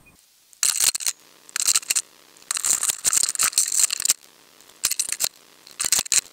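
Rustling and crunching noise in five short bouts, the longest about a second and a half.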